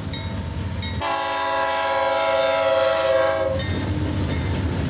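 Diesel freight locomotive's air horn sounding one long, steady blast for the grade crossing as the lead unit reaches the road. The blast cuts off about three and a half seconds in, leaving the rumble of the locomotive and train rolling past.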